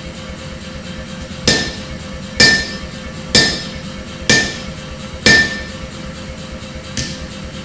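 Hand hammer striking a glowing-hot damascus steel bar of 1075 and 15N20 on the anvil: five ringing blows about a second apart, then a lighter one near the end, over a steady hum.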